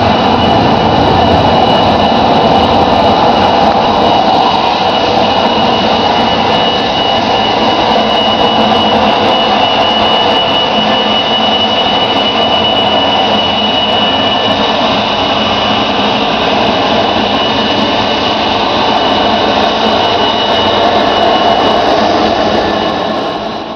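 Boeing 737-200's Pratt & Whitney JT8D turbofan engines running steadily as the jet rolls past, a loud rushing jet noise with a steady high-pitched whine over it.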